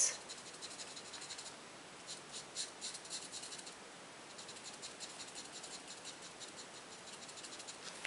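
Fine tip of an alcohol marker stroking over cardstock as a small stamped bird is coloured in: faint, irregular scratchy strokes that come in short runs.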